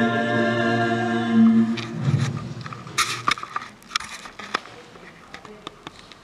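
A recorded hymn's sung chord is held and then ends about two seconds in. Scattered sharp clicks and brief scraping and rustling handling noises follow.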